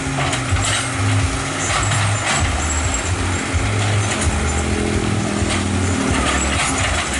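Excavator's diesel engine running while dredging a riverbed, its low drone swelling and easing, with scattered clanks and knocks.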